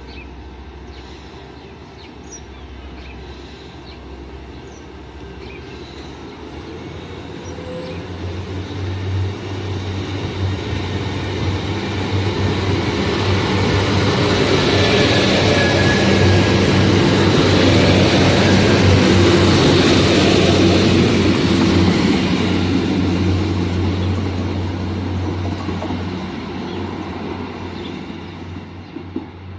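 Class 175 diesel multiple unit passing along the platform. Its engine hum and wheel rumble grow louder as it draws alongside, with a high steady whine above them, then fade as it moves away.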